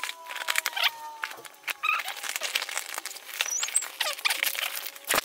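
Cardboard package being torn open, played back sped-up: rapid, high-pitched crackling and rustling of cardboard and tape, with a few short squeaky chirps.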